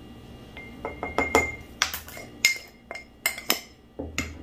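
Metal spoon clinking against a glass jar while stirring dry flour and yeast inside it: a quick, irregular run of sharp clinks, some leaving a short glassy ring.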